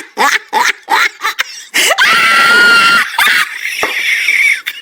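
Rapid short bursts of laughter, then about two seconds in a loud, high, held scream lasting about a second, trailing off into a rougher cry.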